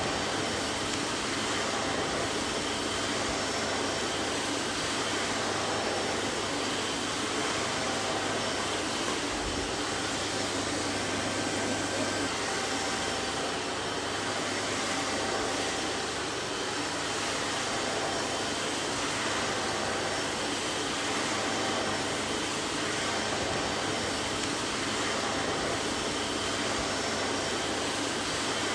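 Vacuum cleaner running steadily: an even, unchanging whooshing hum of motor and rushing air.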